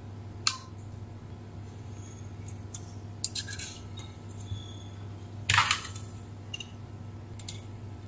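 Sharp metal clicks and scrapes of a thin blade and soldering-iron tip working at a chip's pins on a circuit board: a few separate ticks, with the loudest clink a little past halfway. A steady low hum runs underneath.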